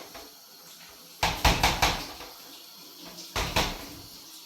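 A run of quick knocks about a second in, then two more about three and a half seconds in, like a door or cupboard being handled.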